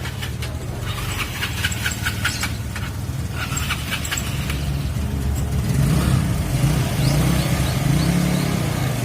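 Small motorcycle engine running as the bike rides off, a steady low hum that grows louder with a wavering, rising engine note from about halfway through.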